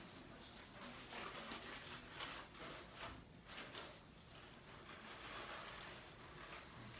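Near-quiet room with faint, soft rustling and handling of plastic IV tubing and a syringe during a slow IV push, a few light rubs between about one and four seconds in.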